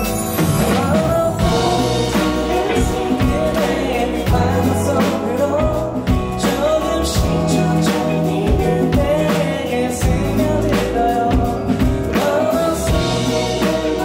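A man singing a song live into a microphone over a band with electric guitar.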